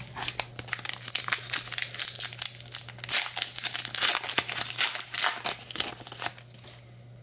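Foil wrapper of a trading-card pack being crinkled and torn open: a dense run of sharp crackles for about six seconds that dies down near the end.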